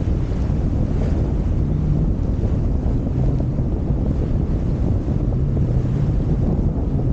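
Strong wind buffeting the microphone over choppy water, a steady low rumble, with a faint low hum that comes and goes a few times.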